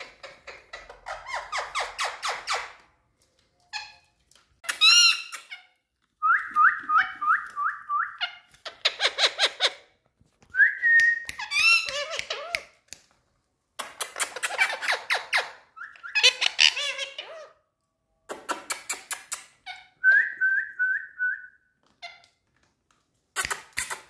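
Indian ringneck parakeets chattering and calling in short bursts with brief pauses between. The bursts are fast runs of squeaky chirps, a few rows of evenly repeated whistled notes, and some calls that slide in pitch.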